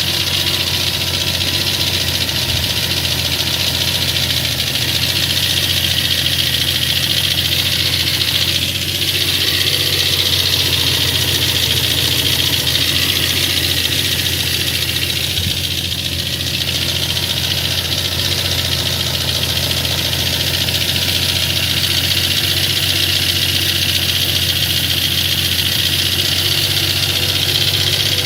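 VAZ 2114 four-cylinder petrol engine running steadily at idle with a knock, the sound of a worn engine due for a major overhaul.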